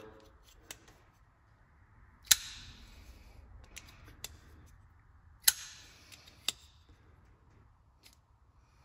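Buck 346 Vantage ball-bearing flipper knife flicked open twice, about three seconds apart, each time with a sharp snap as the blade swings out and the liner lock engages. Lighter clicks come in between as the lock is released and the blade is folded shut.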